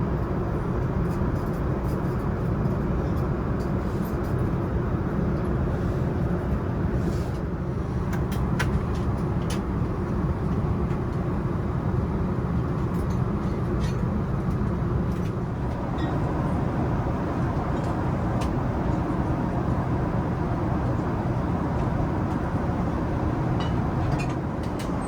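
Steady low rumble inside an Airbus A380 cabin from its Rolls-Royce Trent 970 engines and airflow, with scattered faint clicks.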